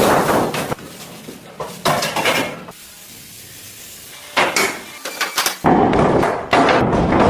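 Irregular metal clanks and knocks in bunches, with a quieter stretch about three seconds in, then denser knocking toward the end.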